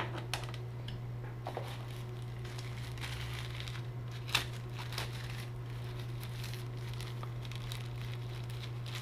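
Plastic packaging crinkling and rustling in the hands as accessories are unpacked, with scattered light clicks and a sharper crackle about four seconds in. A steady low hum runs underneath.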